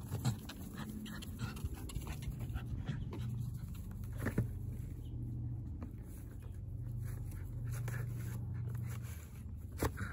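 Border terrier panting as it mouths, drags and noses into a cardboard box, the cardboard scraping and knocking, with a sharp knock about four seconds in and another near the end.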